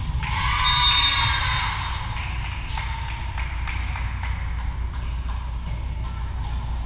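Voices cheering and shouting in an echoing gym as a volleyball point ends, loudest about a second in and then fading, followed by scattered claps over a steady low hum.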